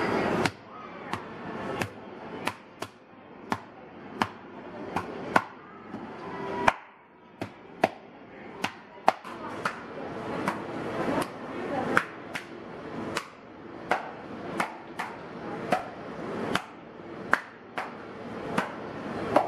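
A hand scraper knocking against a stainless-steel counter while thin roti dough is worked: sharp, short taps, roughly one to two a second, steadily through.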